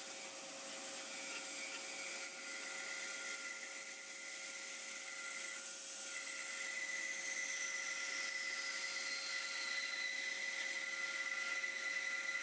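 Bandsaw running with a steady whine and hiss as its blade cuts slowly through a thick laminated hardwood block, following a curved line.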